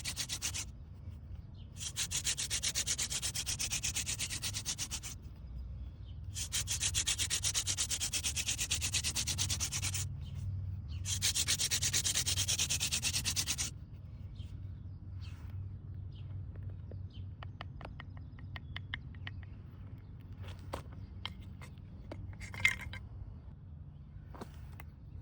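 Wooden spindle of a friction-fire hand drill spun between the palms against a hearth board: a steady rasping rub in four long runs separated by short breaks. The rubbing stops about fourteen seconds in, leaving faint clicks and handling noises and one sharp click near the end.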